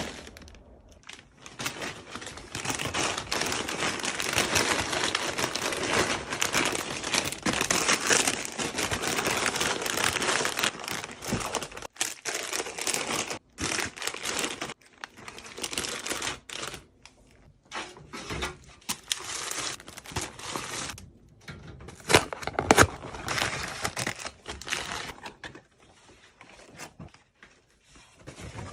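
Plastic snack packaging crinkling and rustling as it is handled, loud and continuous at first, then in shorter patches. A couple of sharp knocks are heard later on.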